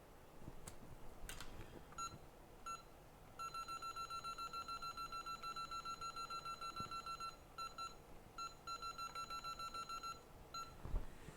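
An electronic beeper sounding: two short single beeps, then a long fast run of rapid identical beeps at about seven a second, broken into a few shorter runs near the end.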